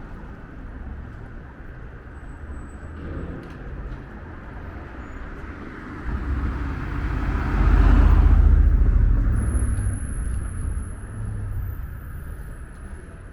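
A motor vehicle passing close by on the street over a steady traffic rumble, swelling to a peak about eight seconds in and fading away.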